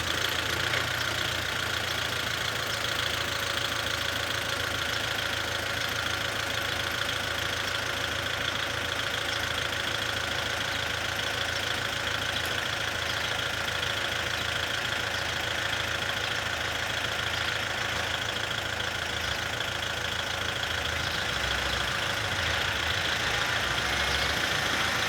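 Farm tractor engine running steadily at an even speed.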